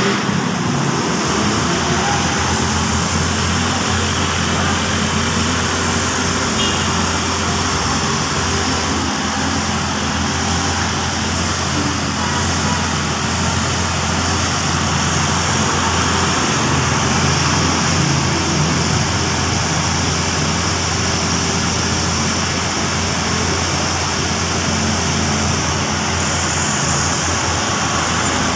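Steady city traffic noise with a constant low engine hum and no sudden events.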